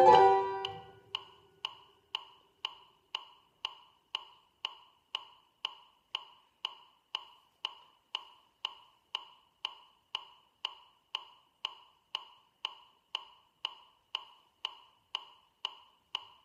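Metronome ticking steadily at about two ticks a second, 116 to the minute, marking the beat through the bars where the piano rests. The upright piano's last notes die away in the first second.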